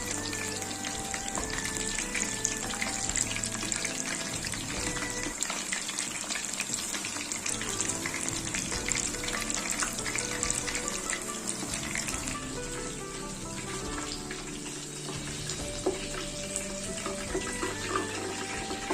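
Chicken pieces deep-frying in hot oil: a dense, continuous crackling sizzle, with light background music under it.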